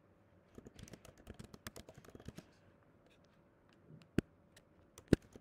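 Typing on a computer keyboard: a quick run of keystrokes for about two seconds, a pause, then two louder single clicks near the end.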